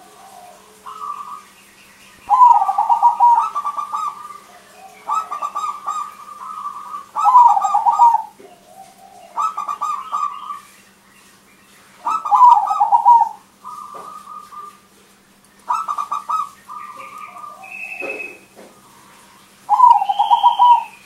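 Crossbred zebra dove (perkutut) in song, giving loud, repeated cooing phrases of about a second each, one every two seconds or so.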